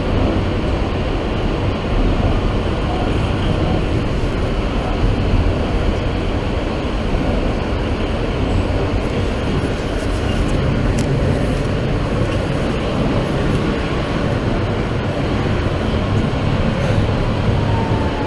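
New York City subway train running between stations, heard from inside the car: a steady rumble of wheels and motors on the rails. A faint falling whine comes in near the end.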